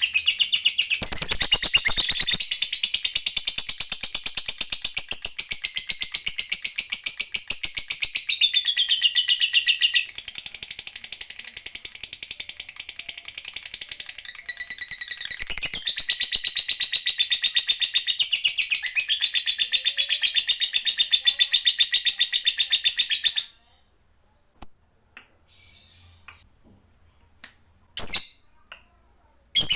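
Masked lovebird giving a long, very fast unbroken chattering trill (the 'ngekek panjang' of a fighter lovebird) that cuts off suddenly about 23 seconds in. A few short sharp sounds follow near the end as the bird flaps its wings.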